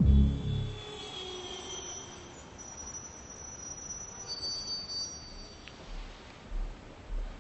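Suspense film score: a deep low swell fades out in the first second, thin high sustained tones hang for a few seconds, and soft low pulses come in a slow regular beat from about six seconds in.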